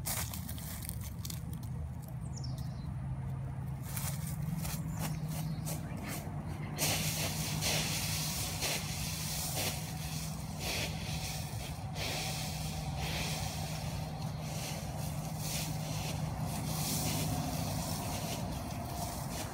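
Dry leaves in a leaf pile rustling and crunching as a person dives and lands in them, growing louder and crackly about seven seconds in, over a steady low hum.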